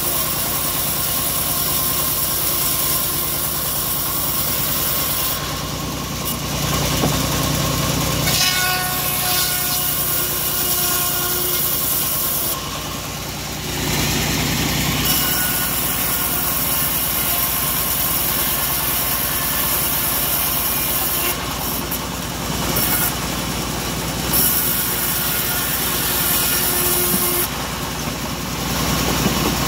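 Homemade band sawmill running steadily while its band blade cuts through wooden boards, a constant machine drone under a high sawing hiss. The hiss drops away briefly several times, between cuts.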